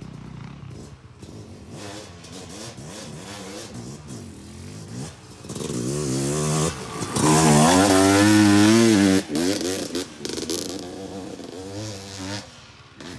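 Yamaha YZ250 two-stroke dirt bike engine revving up and down as it rides a dirt trail, loudest about seven to nine seconds in as it passes close by, then fading as it rides away.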